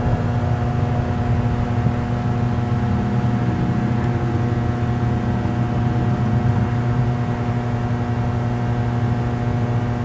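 A steady mechanical drone: a strong low hum with several steady higher tones, holding one pitch without rising or falling.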